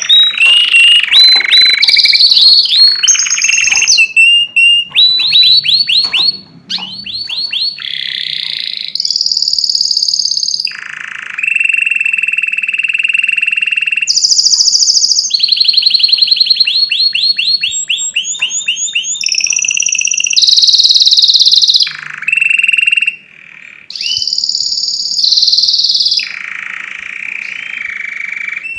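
Domestic canary singing loudly in long varied phrases: rapid rolling trills of repeated notes alternating with held whistled tones and quick glides, with two brief pauses.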